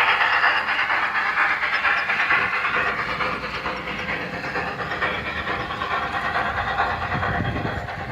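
Toy train running along its track, a steady rattling hiss that grows slowly fainter as it moves off.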